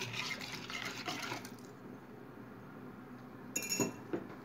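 A whisk scraping faintly in a glass bowl of liquid marinade for the first second and a half, then a single sharp, ringing clink against the glass bowl about three and a half seconds in.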